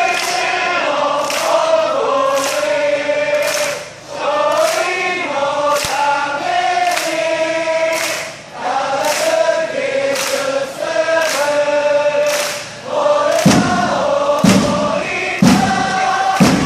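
A crowd of football supporters singing a chant together in unison, clapping in time. About three-quarters of the way through, deep thumps about once a second join the beat.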